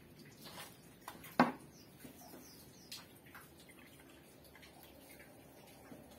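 Potting soil being scooped with a hand trowel into a plastic bucket, then a fern's root ball set into it: soft scraping and rustling with a few light clicks and one sharp knock about a second and a half in.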